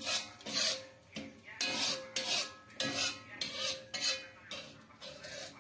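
A cooking utensil scraping and stirring against a metal pan in quick rasping strokes, about two a second, with a faint metallic ring.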